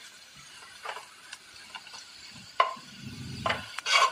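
A utensil stirring and scraping shallots, ginger, garlic and curry leaves frying in a metal pan, over a light sizzle. There are several sharp clacks of the utensil against the pan, the loudest about two and a half seconds in and near the end, and a brief low rumble a little after three seconds.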